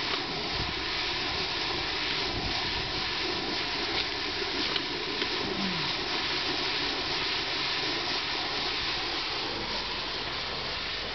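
Synthetic-turf seam-taping machine running with a steady, even whirring hiss as it lays tape.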